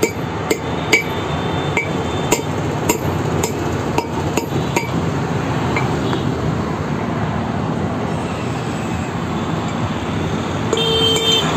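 Hammer striking the wheel studs of a car's brake drum hub to drive the old studs out, sharp metallic knocks about twice a second that stop about five seconds in. A brief tone sounds near the end over steady background noise.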